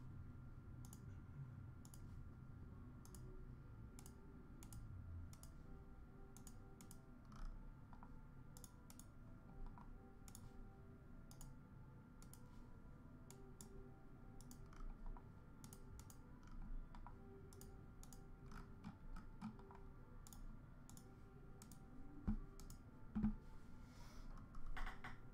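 Faint sharp clicks repeating about once or twice a second over a low steady hum, with a couple of louder dull knocks and a brief rustle near the end.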